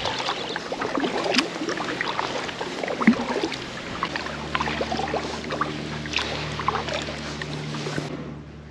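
Kayak being paddled: the paddle blades dip and drip water, with small splashes and scattered ticks. A faint low steady hum comes in about four seconds in.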